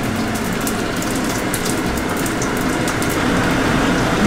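Hot oil sizzling and crackling in a frying pan, a steady hiss with many fine pops throughout.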